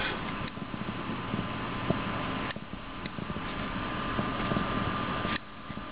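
Small fax-machine stepper motor running under a 555-timer and dual flip-flop driver: a steady mechanical buzz of rapid steps. There is a click about two and a half seconds in, and the sound drops off sharply near the end.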